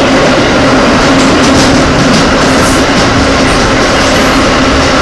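The inside of a vintage IRT Lo-V subway car running at speed through a tunnel, with a loud, steady rumble of wheels and running gear. Under it runs a constant hum, and there is some rail clatter.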